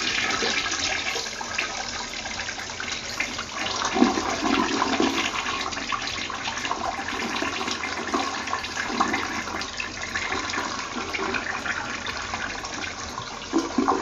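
Older-style 6-litre toilet flushing: water rushing and swirling down the bowl into the drain, dying down near the end. A test flush of a tank newly fitted with a new fill valve and flush valve.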